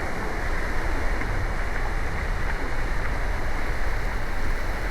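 Steady rushing of moving water, an even noise with no breaks.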